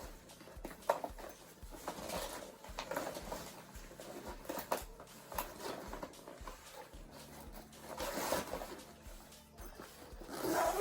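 Soft background music with a steady beat, under scattered clicks and short rustles of stationery being handled and packed away, with a louder clatter near the end.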